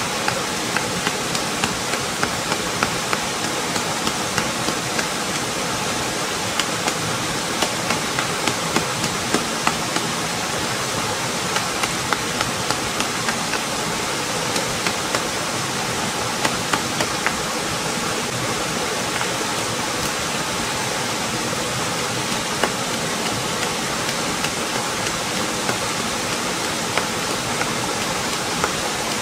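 Steady rush of a small waterfall pouring into a rock pool, with runs of sharp knocks, about two a second, of something being pounded against rock; the knocks come thickly for the first half, then only now and then.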